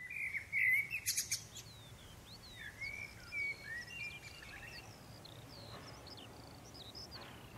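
Songbirds chirping and singing: many short whistled notes sliding up and down in pitch, overlapping. They are loudest in the first second and a half, with a quick rattle about a second in.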